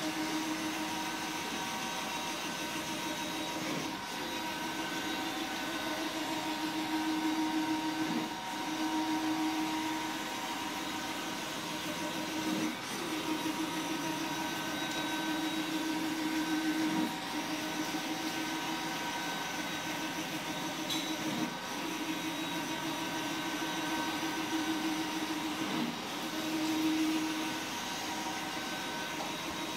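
ColorSpan 72UVR UV wide-format printer printing: the print-head carriage travels back and forth across the roll, its motor humming over a steady machine whir. Each pass lasts about four seconds and ends in a short knock where the carriage turns.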